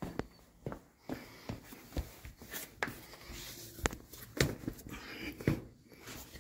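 Irregular light clicks and knocks over soft rustling: handling noise from someone moving about and shifting the camera close to the microphone.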